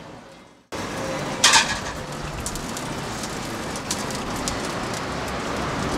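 Chicken skewer sizzling on a round grill plate under an overhead heater: a steady sizzle with small ticks, and one sharp clack about a second and a half in.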